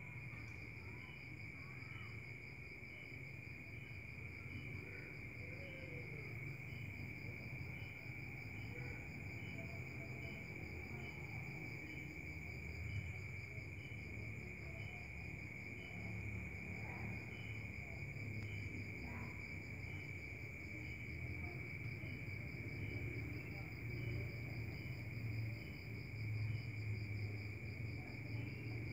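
Crickets and other night insects chirping: a steady high trill, a faster pulsing trill above it, and a soft regular chirp a little more than once a second, all faint.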